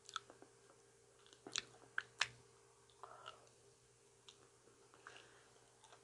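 Close-miked chewing of soft ripe banana: quiet, scattered wet mouth clicks and smacks, with a few sharper ones between about one and a half and two and a half seconds in.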